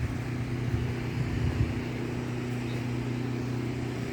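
A steady low mechanical hum, with a few dull low bumps in the first two seconds.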